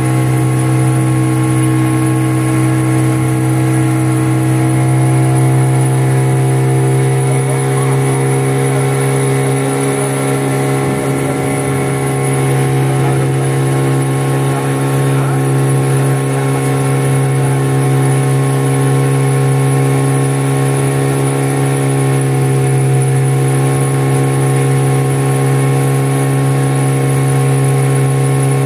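A motorboat's engine running steadily at cruising speed, heard from on board: an even drone that holds one pitch throughout.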